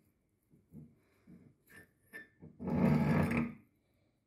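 Meat grinder crushing big Orbeez gel balls: a few faint short sounds, then one louder noise about a second long past the middle.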